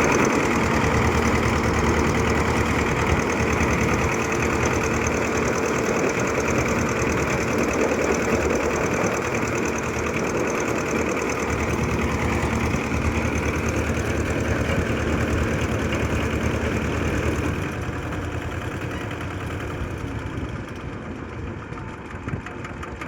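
A heavy machine's engine running steadily, getting quieter about seventeen seconds in.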